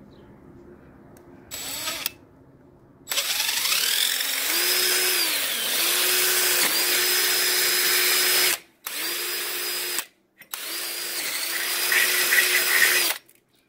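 DeWalt cordless drill with a quarter-inch metal bit drilling through a screen door frame: a short trigger pull, then the motor whines up to speed and runs in three long bursts with brief stops, its pitch sagging for a moment now and then as the bit bites.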